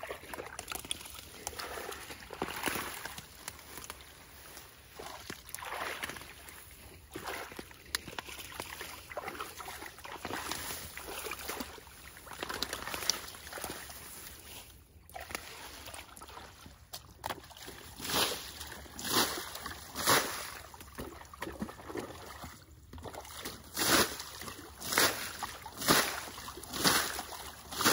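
Shallow muddy ditch water sloshing and splashing as it is worked by hand for fish. In the second half, a run of regular splashes comes about once a second.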